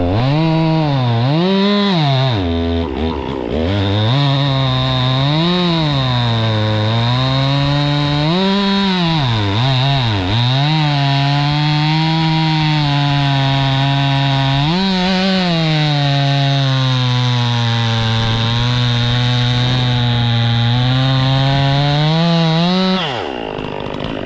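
Chainsaw cutting wood: the engine revs up and drops back several times, runs at a steady, lower pitch under load through long stretches of the cut, then winds down near the end.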